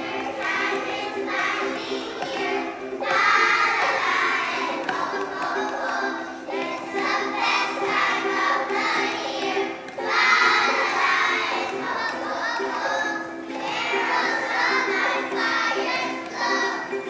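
A large choir of young children singing together, in phrases a few seconds long, over steady held accompaniment notes.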